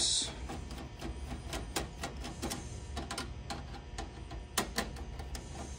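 Flat-blade screwdriver backing out the screws of the metal network-card panel on an HP LaserJet 4200 printer: a brief scrape at the start, then irregular small clicks and ticks as the screws turn, with two louder clicks a little past halfway.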